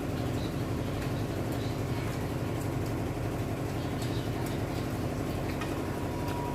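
A steady low machine hum, with faint small clicks and smacks of eating over it.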